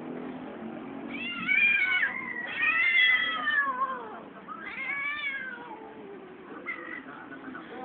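Cat caterwauling in mating season: three long, wailing yowls that bend down in pitch as they trail off, the first two the loudest, followed by a few shorter, fainter cries near the end.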